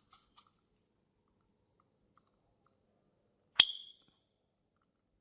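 Faint handling ticks, then one sharp plastic click about three and a half seconds in, as a circuit board is pressed into its hole in a plastic drill battery case.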